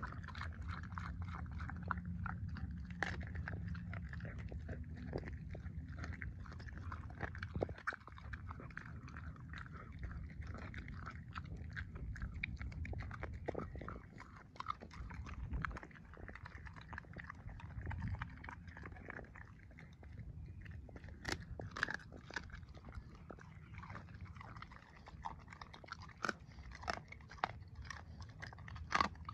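A blue Staffordshire bull terrier chewing a chicken drumstick, with irregular crunches and clicks of its teeth on the bone.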